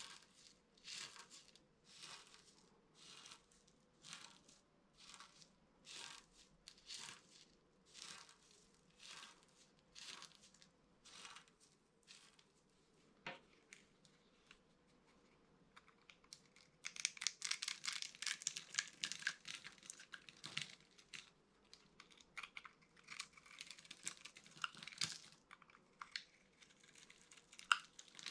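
Dry soap being worked by hand: scraping strokes at a steady pace of about one a second, then after a brief lull, more than halfway through, a denser, louder run of crackly crunching as the dry soap breaks up.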